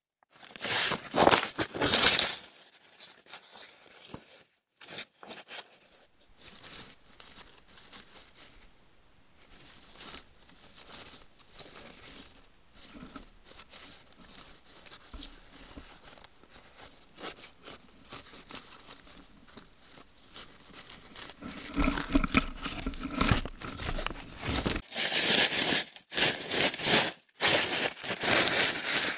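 A hoglet (young hedgehog) rustling and crinkling the newspaper bedding of its hedgehog house in irregular bursts, loudest near the start and over the last seven seconds.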